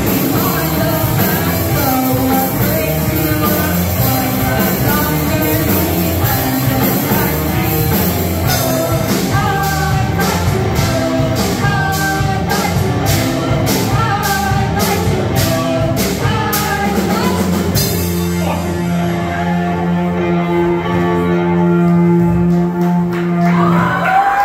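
Live rock band with distorted electric guitars, drum kit and sung lead vocals. Through the middle, cymbal hits fall on a steady beat of about two a second. For the last several seconds the band holds one long sustained chord.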